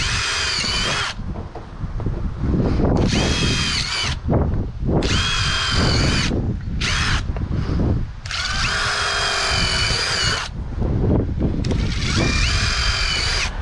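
Power drill boring air holes, run in about six short bursts of a high motor whine with brief pauses between them; the longest burst lasts about two seconds, about two-thirds of the way through.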